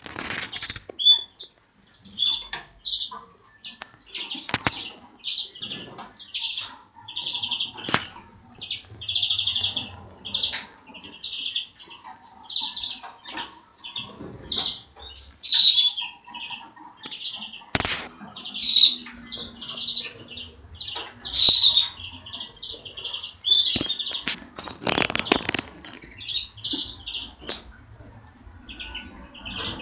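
Caged European greenfinches singing: repeated twittering and trilled phrases, one after another, with a few sharp clicks and a brief flutter-like rustle about 25 seconds in.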